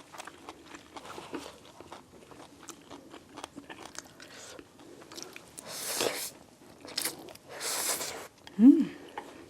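Close-miked eating: wet mouth clicks and chewing, with louder crunching or slurping bursts about six and eight seconds in, then a short appreciative hum ("mmm") near the end.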